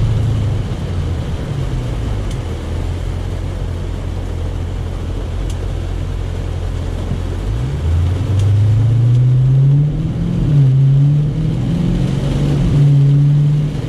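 A Dodge Challenger Scat Pack's 6.4-litre HEMI V8 heard from inside the cabin, running steadily at low speed and then pulling harder from about halfway through, its pitch rising and holding higher. Heavy rain hisses on the car throughout.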